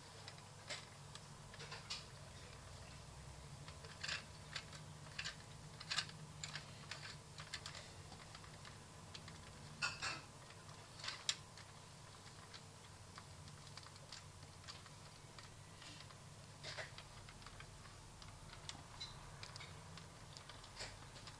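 Irregular plastic clicks and taps from a Bruder CAT toy telehandler as its boom knobs are turned and its parts are moved by hand, with a few louder knocks, over a faint low hum.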